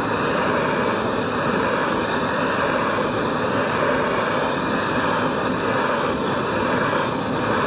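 Heat gun blowing steadily, switched on just before and running without a break, heating the aluminium engine case so that it expands and the hub bearing goes in more easily.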